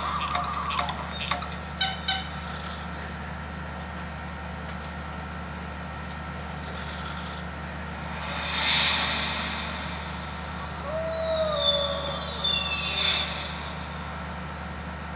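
Film-company logo sound effects played from a television: a few short chime-like tones at the start, a soft whoosh, then a shimmering sparkle of several high tones sliding downward, and a second whoosh. A steady low hum runs underneath.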